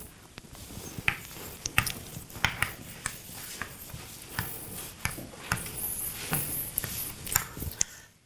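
Rustling and handling noise close to the microphone, with about a dozen sharp clicks and taps spread irregularly through it.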